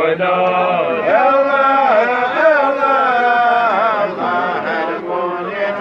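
Men chanting a slow melodic chant with long, drawn-out notes that bend and waver in pitch.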